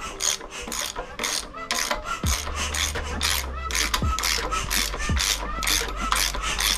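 Ratchet wrench on the crankshaft pulley of a rebuilt Mazda WL-T turbodiesel four-cylinder, working back and forth in quick rasping clicks, about three strokes a second, as the engine is turned over by hand to check for knocks and hard spots. Low thuds and a low hum join in about two seconds in.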